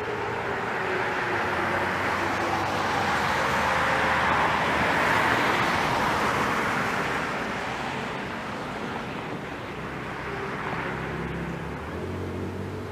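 A car passing by on the road, its tyre noise swelling to loudest about five seconds in and then slowly fading.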